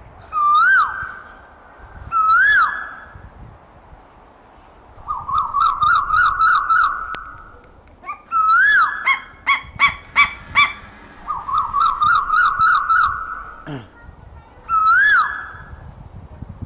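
Asian koel calling: loud single whistled notes that rise and fall, alternating with fast runs of repeated notes. A cluster of sharp clicks comes near the middle.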